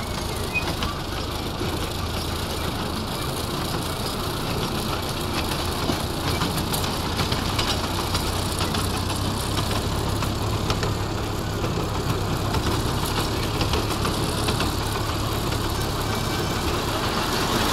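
Miniature ride-on train running steadily along its track, heard from on board: a constant low engine hum with the noise of the wheels on the rails.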